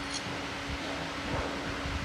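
Steady mechanical hum with a constant pitch, with a light tick just after the start.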